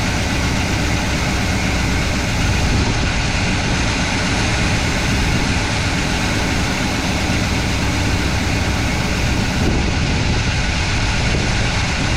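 IHC wrecker truck's engine running steadily at idle, loud and close.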